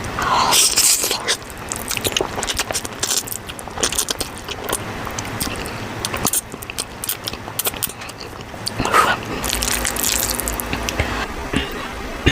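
Wet, close-up chewing of a big mouthful of ramen noodles, with many sticky mouth clicks and smacks.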